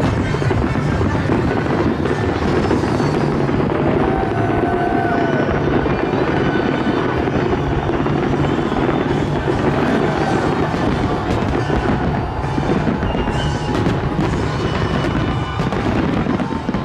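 Continuous barrage of fireworks: many bangs and crackles overlapping, with a few short whistles, over music.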